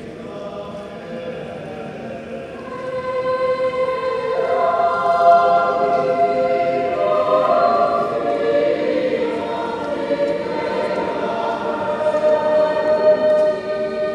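Choir singing slow, long held notes, starting soft and swelling louder a few seconds in.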